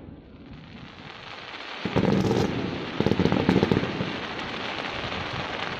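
Fireworks going off: a brief lull of hissing, then loud bangs about two seconds in and again a second later, followed by dense crackling.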